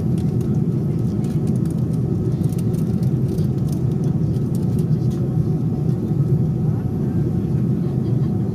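Steady low cabin noise of an airplane in flight: engine and airflow noise heard from inside the cabin, with a sharp click at the very end.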